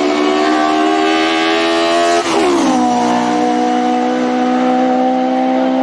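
Race car engine at full throttle accelerating hard, its pitch climbing steadily, with one quick upshift about two seconds in that drops the revs before they climb again.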